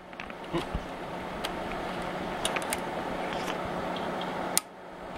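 Steady whir of a cooling fan with a low electrical hum, broken by scattered small clicks and handling knocks. About four and a half seconds in, a sharp click is followed by a brief dip in the whir.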